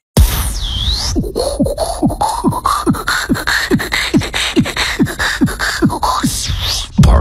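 Beatboxer performing into a studio microphone: a steady beat of deep kick-drum sounds, about two and a half a second, each dropping in pitch. In the first half a whistle-like tone rises over the beat. A louder, fuller beat comes in just before the end.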